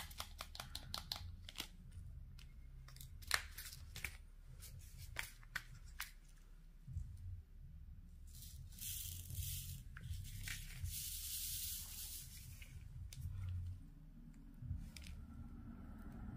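Small sharp clicks of diamond-painting drills and tools tapping on the canvas, quick at first and then sparser, followed by two brief hissing tearing sounds of the canvas's clear plastic cover film being handled.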